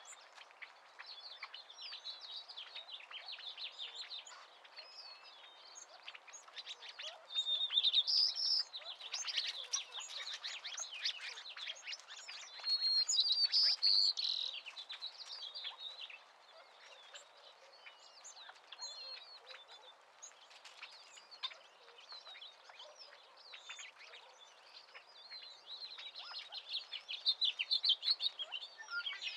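A chorus of small birds chirping and singing, many short calls overlapping, with louder bouts of song about a quarter of the way in, near the middle and near the end.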